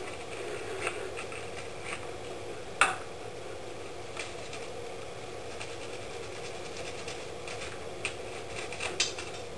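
A toothbrush scrubbing paint off a small plastic miniature that has been softened in Dettol, with soft bristle scratching and a few sharp clicks of plastic knocking, the loudest about three seconds in. A steady low hum sits underneath.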